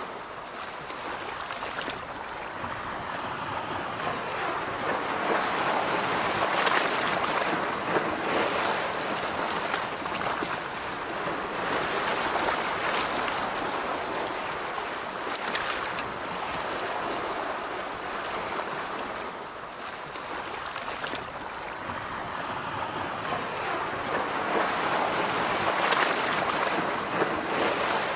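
Ocean surf on a beach: waves breaking and washing up the shore in a steady rush that swells and ebbs every several seconds.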